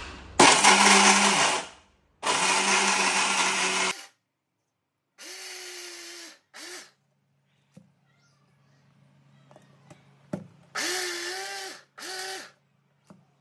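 Electric mixer grinder grinding roasted nuts and seeds to powder in a large jar, run in pulses. There are two long, loud runs in the first four seconds, then several shorter, quieter pulses whose motor pitch rises as it spins up and falls as it stops.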